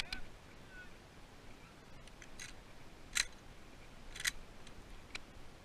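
A handful of short, sharp clicks at irregular spacing, the loudest about three seconds in and another just past four seconds.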